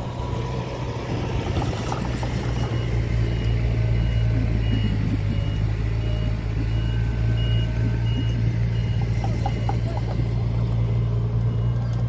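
Heavy machinery's engine running steadily at a low drone, with a reversing alarm starting to beep in short, evenly spaced pips about two and a half seconds in.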